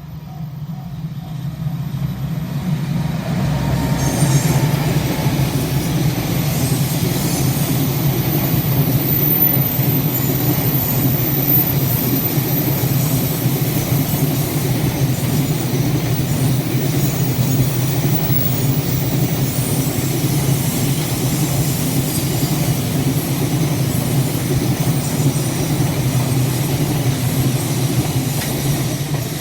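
A JR Tokaido Main Line train passing close by: a loud, steady rumble of wheels on rail that builds over the first few seconds, holds for more than twenty seconds, and begins to fade near the end.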